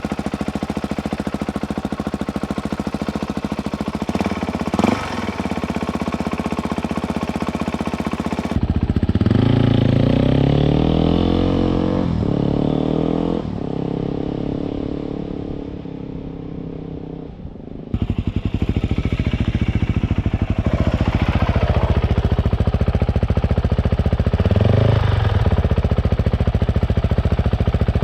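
Suzuki DRZ400E dirt bike's single-cylinder four-stroke engine running through its exhaust, idling and being revved in several separate takes: a short blip early on, a run of revs in the middle, and more revs after a cut.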